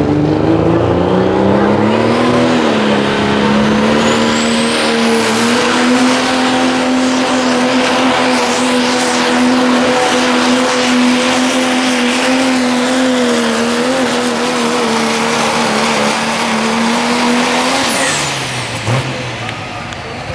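Diesel pickup pulling truck's engine at full throttle, dragging a weight-transfer sled. The revs climb over the first couple of seconds, then hold high and steady with a high whistle above them, and both fall away about 18 seconds in as the pull ends.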